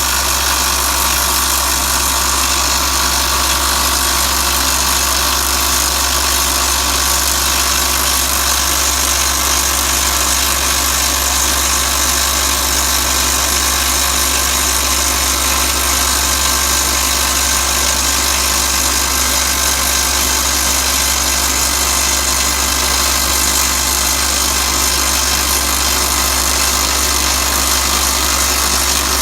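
Atlas Copco FlexiROC surface drill rig running: a loud, steady machine noise heavy in hiss, with no change or separate blows.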